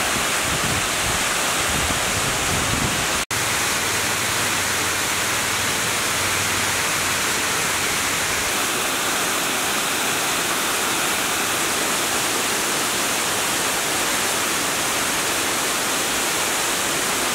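Water pouring over a masonry weir, a steady rushing roar of falling water, with a momentary break about three seconds in.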